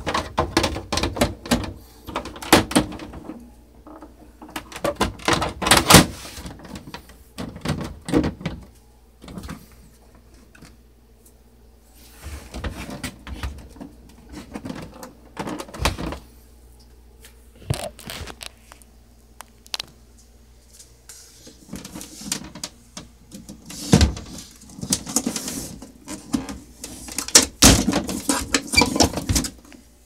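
Hard plastic lid and case of a Smith Corona PWP 3 portable word processor being pressed, shifted and handled, giving irregular clicks, knocks and scrapes of plastic, with a couple of quieter pauses and a louder knock past the middle.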